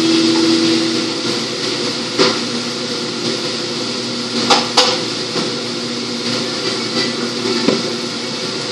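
Steady hum of kitchen equipment with a few sharp knocks: one about two seconds in, two in quick succession around four and a half seconds, and a lighter one near the end.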